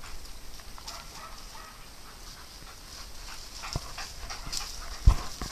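Faint dog sounds, short whines and panting, over light outdoor noise. Later come clicks and rustling, dry leaves brushing close by, and one sharp thump about five seconds in.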